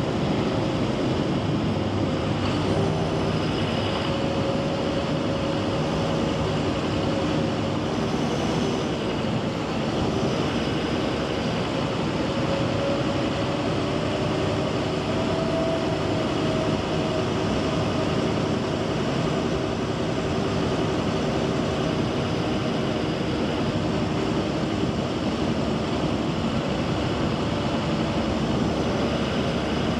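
John Deere 7530 tractor's six-cylinder diesel engine running steadily, its note rising slightly around the middle.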